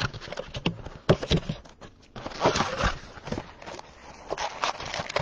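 Cardboard trading-card blaster box being handled and opened by gloved hands, with packs slid out: scattered taps, knocks, scrapes and rustles of cardboard.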